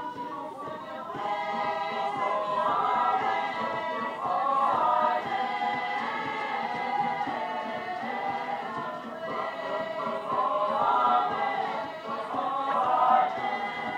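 A small group of singers singing a song together in harmony, their sustained voices swelling louder about five seconds in and again near the end.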